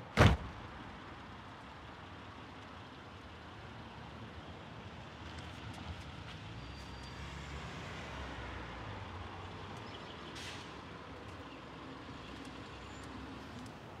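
A wooden front door slams shut with one sharp bang at the start. After it comes a steady low hum of street traffic that swells gently through the middle as a car passes.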